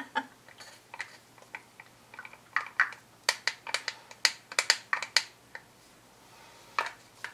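Wooden craft stick scraping and tapping against a small plastic paint cup as the last of the paint is scraped out: a quick run of sharp clicks in the middle, with a few stray taps either side.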